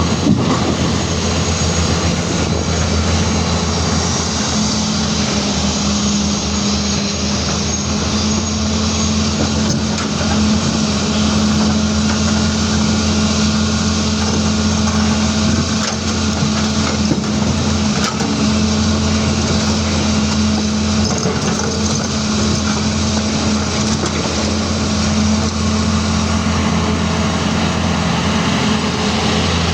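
Caterpillar 336D excavator's diesel engine running steadily with a constant low hum.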